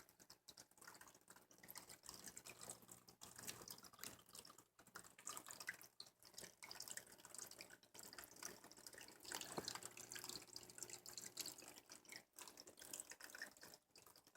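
Faint trickling and dripping of water from a small man-made waterfall in a reptile tank, with a faint low steady hum underneath.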